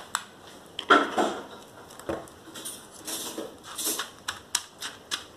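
A metal spoon scraping and stirring chili paste in a stone mortar, with irregular knocks of the stone pestle against the mortar.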